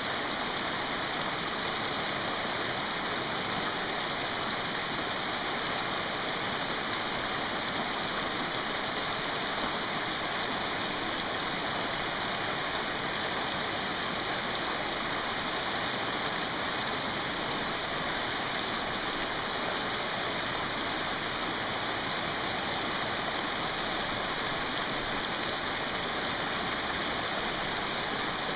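Shallow, rocky mountain river rushing steadily over stones, a constant even roar of white water.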